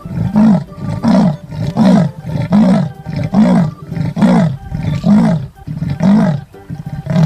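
Leopard giving its sawing call: a regular series of about nine rasping grunts, roughly one every 0.8 seconds.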